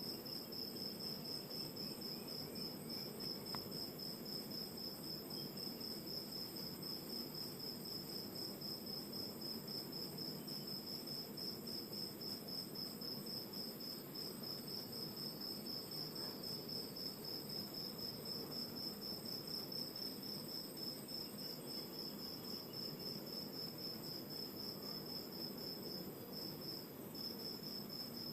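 Crickets chirping at night in a fast, steady pulsed trill that breaks off for a moment near the end, over the low, even rush of ocean surf.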